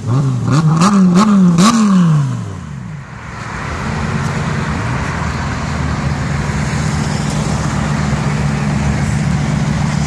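Lamborghini Gallardo Spyder's V10 revved in quick blips, several in a row, with sharp pops around the tops of the revs. Its note then drops and fades about two to three seconds in as the car pulls away. From about four seconds in, another engine's steady low note builds and holds.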